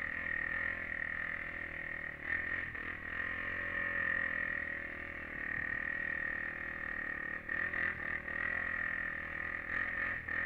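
Honda 400EX quad's single-cylinder four-stroke engine running at a steady, even pitch under light throttle, with brief rough patches about two seconds in, around seven and a half seconds and near the end.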